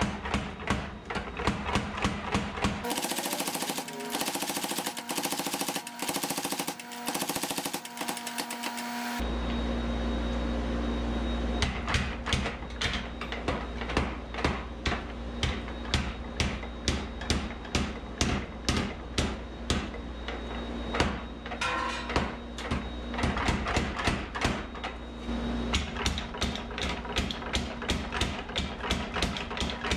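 Power hammer striking a glowing san mai billet of stainless and high-carbon steel in rapid, even blows, a few a second. A steady hiss runs alongside the blows for several seconds early on.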